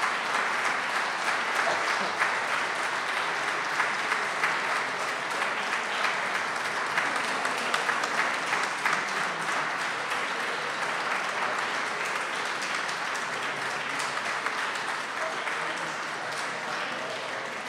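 Audience applauding, many hands clapping densely and steadily, slowly dying down over the last few seconds.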